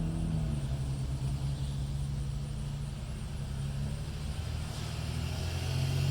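Steady low mechanical hum that holds level throughout.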